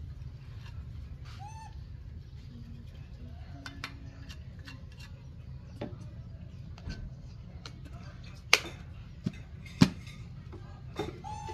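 Plastic scoop and lid clicking against a tin of powdered formula milk as powder is scooped out and the tin is closed, with two sharp, loud clicks in the second half. A few short chirping calls sound at the start and near the end.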